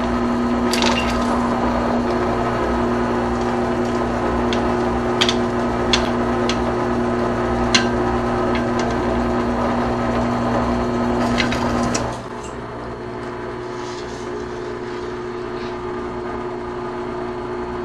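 Benchtop drill press running steadily with a constant motor hum, drilling holes through aluminium wiggle-wire lock channel backed by a wood block, with a few sharp clicks from the bit. About twelve seconds in the sound drops to a quieter, steady hum.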